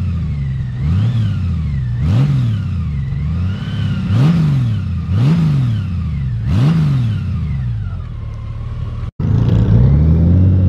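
Honda Gold Wing's flat-six engine revved in about six quick throttle blips at a standstill, each note rising and falling back to idle. After a sudden cut near the end, the engine pulls steadily with a slowly rising note as the bike accelerates.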